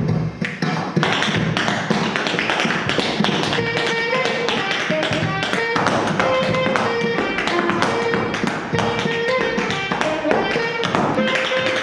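Tap shoes striking the floor in quick rhythmic steps over background music.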